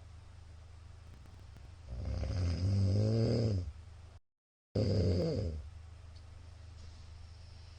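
A man snoring loudly in his sleep: a long, rough snore with a pitched buzz about two seconds in, then after a half-second cutout of total silence a second loud snore that fades off. Between snores there is only quiet breathing and room noise.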